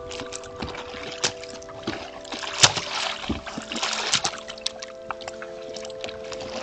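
Water splashing and sloshing at a pond in many short, irregular splashes, over a soft background music drone of held notes.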